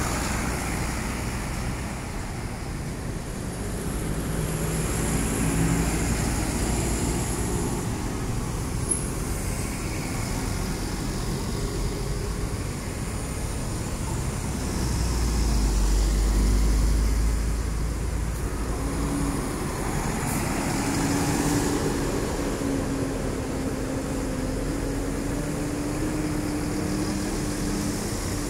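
Large tour coaches driving past one after another, their engines running with a steady low drone over road and traffic noise, swelling louder for a few seconds around the middle.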